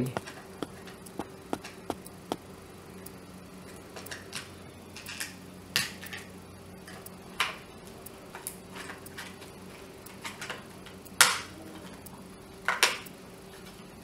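Scattered plastic clicks and knocks as the Orpat OEI-177 dry iron's bottom cover is handled and pressed into place on the iron's body, with a few louder snaps near the middle and end.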